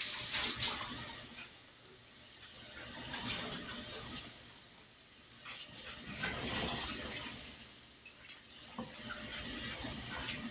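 Kitchen sink faucet running while hands are washed under the stream after handling raw chicken, a steady hiss of water that swells and fades every few seconds as the hands move in and out of it.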